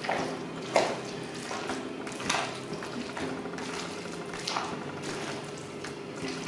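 A metal utensil stirring thick mayonnaise potato salad in a glass bowl: wet, squelching strokes with several sharper knocks against the bowl, the loudest a little under a second in.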